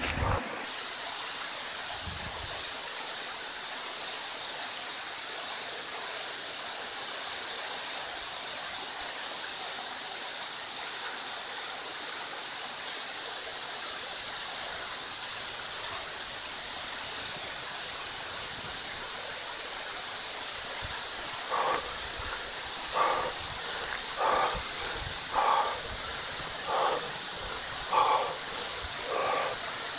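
Steady hiss of rushing water. In the last third, about eight short animal calls come roughly one a second.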